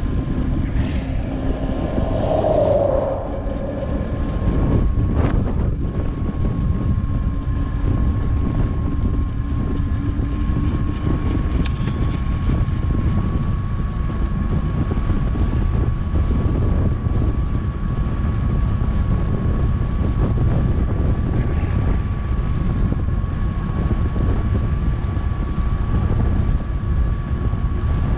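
Wind rushing over a GoPro 7's microphone on a bicycle coasting fast downhill: a steady low rumble, with a thin steady whine held above it.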